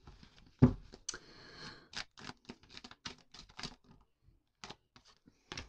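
A deck of oracle cards being shuffled by hand: a quick, irregular run of card flicks and slaps, with a dull thump about half a second in and a short rustle of cards sliding just after a second.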